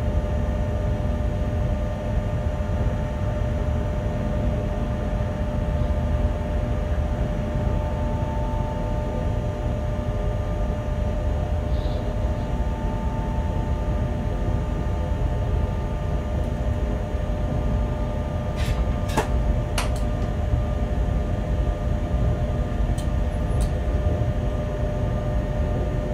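Bombardier Traxx BR 186 electric locomotive running light, heard from its cab: a steady low rumble of wheels on track with a constant electrical whine over it. A few sharp clicks come about two-thirds of the way through.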